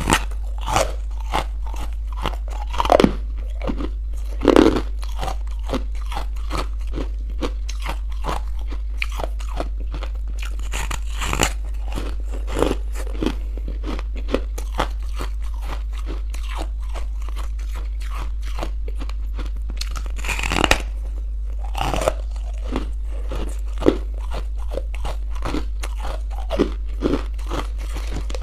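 Crunchy buckwheat chunks being bitten and chewed close to the microphone: a dense run of small crunches, with a few louder bites near the start and again about two-thirds of the way through. A steady low hum runs underneath.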